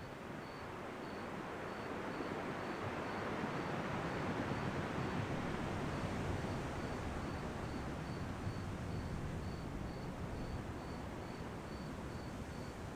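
Ocean waves washing in, one surge swelling over the first few seconds and slowly falling away. A faint, high, evenly repeated chirping runs through it, a few chirps a second.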